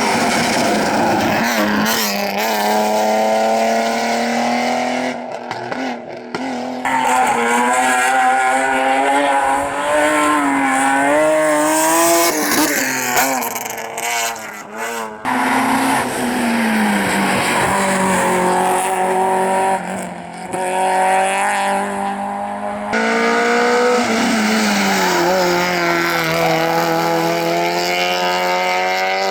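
Rally cars at full attack on a tarmac stage: engines revving hard, climbing and dropping in pitch through gear changes, with some tyre squeal, in several separate passes that change abruptly.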